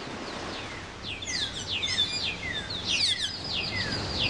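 Several forest birds chirping and calling, with many quick high notes that slide downward, starting about a second in, over a steady background of outdoor noise.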